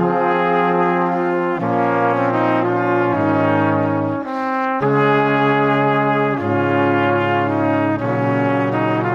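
Background music of slow, sustained chords that change every second or two, with a short break about four seconds in.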